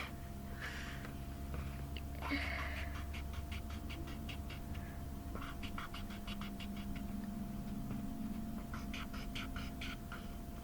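Felt-tip marker scribbling back and forth on paper to colour in an area, in quick strokes several times a second that come in two runs, over a steady low hum.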